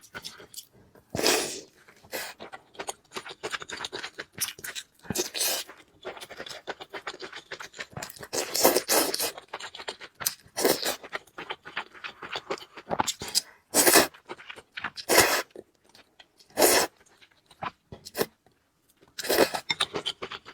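Close-miked eating of noodles and other food: chewing and crunching in irregular bursts, with clicks and short pauses between mouthfuls.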